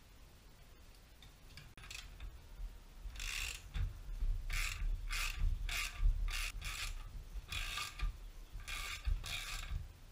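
Ratchet wrench clicking in a run of short strokes, starting about three seconds in and coming every half second to a second, as it turns the threaded rod of a bushing press tool to draw a rubber bushing into a BMW E39 rear wishbone (lower control arm).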